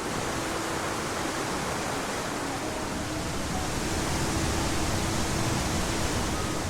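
Steady rush of a mountain waterfall or fast stream, an even hiss with no break.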